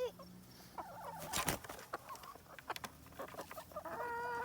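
Backyard chickens clucking, with short clicks and rustling and one louder crackle about a second and a half in. Near the end one bird starts a long, steady call.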